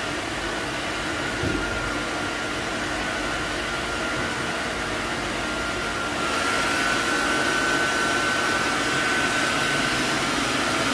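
Handheld hair dryer blowing steadily with a thin whine while drying a dog's coat, louder from about six seconds in.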